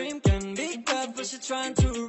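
Hip-hop track playing through a Marshall Emberton II portable Bluetooth speaker as a sound test, with two deep bass notes that slide down in pitch under a melodic line.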